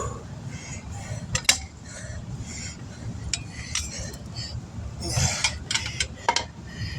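Steel tire tools clinking and scraping against a wheel rim during a manual tire change, with several sharp metallic clinks, the loudest about a second and a half in and a cluster near the end.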